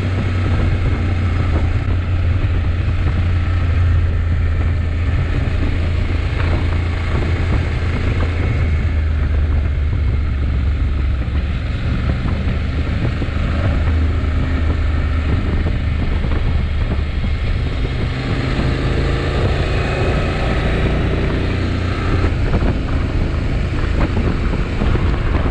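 Honda NC750X parallel-twin motorcycle engine running at road speed, a steady low drone, with wind rushing over the microphone.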